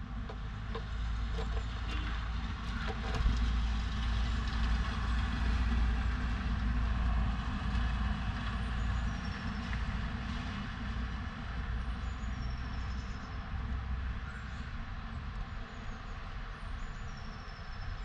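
Low rumble of passing road traffic, heaviest in the first half, like a large vehicle going by. Faint, short, high bird calls come through now and then in the second half.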